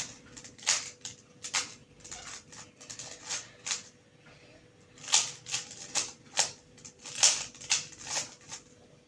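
3x3 Rubik's cube being turned by hand: quick plastic clicks and clacks as the layers rotate, in bursts of several turns, with a short lull about four seconds in.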